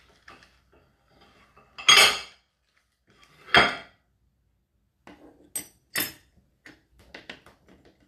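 Metal cutlery clinking and clattering against the wire cutlery tray of a Whirlpool dishwasher as it is put in place. Two loud clatters come about two and three and a half seconds in, followed by a few sharper clicks and then a run of light clinks near the end.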